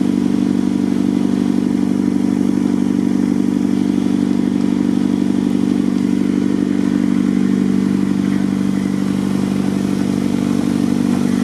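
A combustion engine running steadily at constant speed: a loud, low, even drone that does not change.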